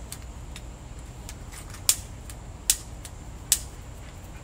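Long-reach lighter's igniter clicking as it is triggered over wood fire-starter pieces. There are three sharp clicks in the second half, a little under a second apart, with fainter ticks before and between them.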